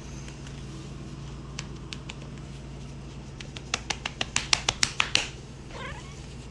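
Utensil stirring a soy sauce marinade in a container, clicking against its sides in a quick, even run about halfway through, then a softer scrape.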